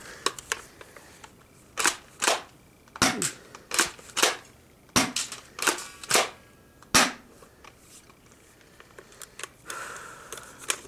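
Spring-powered airsoft shotgun being pumped and fired: a series of sharp clacks, about ten over the first seven seconds, as its stiff pump action is worked. A short soft rustle comes near the end.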